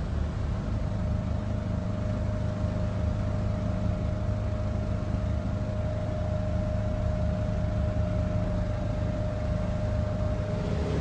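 A boat's engine running steadily, heard on board as a low drone, with a faint steady whine above it.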